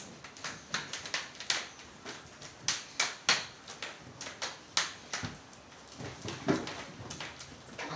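Irregular light knocks, taps and rustles of hand puppets being jostled against each other and the wooden frame of a puppet theatre.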